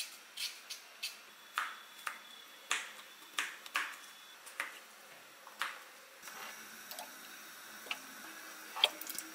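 Light, sharp clicks and taps of kitchen work, irregularly spaced: a couple a second at first, sparser later, with a faint hiss in the second half.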